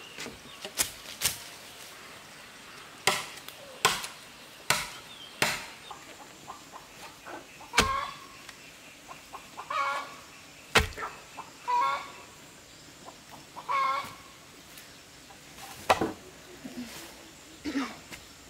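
A chicken clucking in four or five short calls, mixed with about ten sharp knocks at irregular intervals, like chopping or striking on wood.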